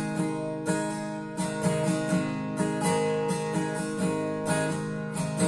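Acoustic guitar strummed in the brisk 'campfire' rhythm, steady strokes across the chords with regularly accented strokes marking the beat.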